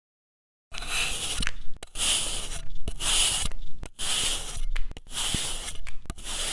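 A blade shaving thin slices off a block of kinetic sand, with about six gritty scraping strokes of roughly a second each, one after another, starting shortly after a brief silence.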